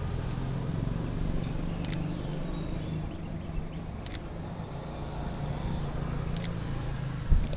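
Steady low engine hum of street traffic, with three faint clicks about two seconds apart and a short thump near the end.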